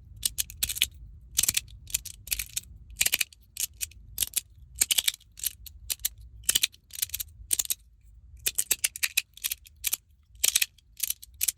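3D-printed magnetic sandwich slider fidget: its plastic plates sliding and snapping together under strong magnets, giving irregular sharp clicks, often in quick clusters.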